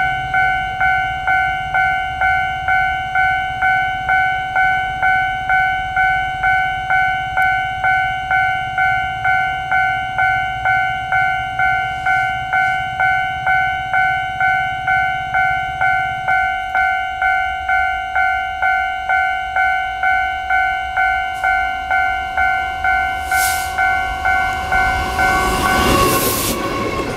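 Level-crossing warning bell ringing steadily, about two strokes a second. In the last few seconds a Taiwan Railways passenger train passes close by, its rumble rising under the bell.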